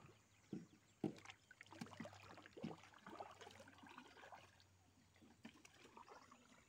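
Near silence on a small boat on a river: faint water sounds with a few light knocks, the sharpest about a second in.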